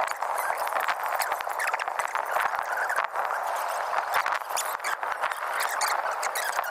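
Lock's steel floodgate being hoisted open: a dense crackling, clicking noise that starts and stops abruptly.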